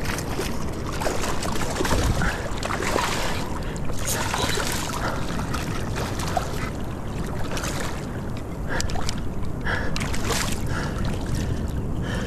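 Rushing wind on the microphone over sea water splashing and sloshing, with bursts of louder splashing, as a big reef fish is fought by hand in shallow water after the rod has snapped.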